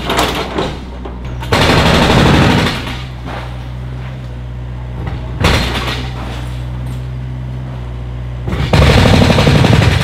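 Hydraulic excavator's diesel engine running steadily, with three loud bouts of crashing and rattling as its arm tears apart a house's sheet-metal roof and wooden walls: one a little after the start, a short one midway, and the longest near the end.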